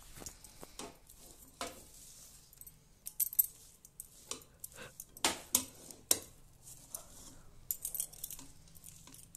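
Puffed rice being turned over by hand in jaggery syrup in a steel kadhai: soft rustling with irregular sharp clinks.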